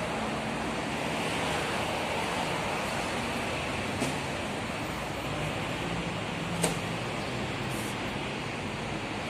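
Steady noise of city road traffic, with two short sharp clicks, one about four seconds in and a louder one about six and a half seconds in.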